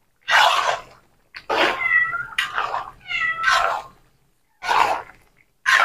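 An animal calling in a few short cries that bend in pitch, with brief hissing bursts in between.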